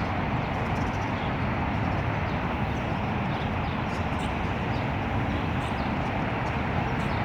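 Steady road traffic noise, with short, high bird chirps scattered through it.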